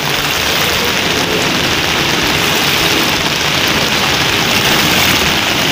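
Heavy rain falling on a flooded street, a steady, even hiss.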